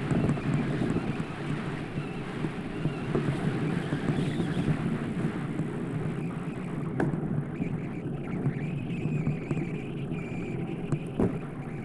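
Steady rumbling noise of riding a bicycle: wind buffeting the microphone over the rolling tyres. There are two sharp clicks, one about halfway through and one near the end.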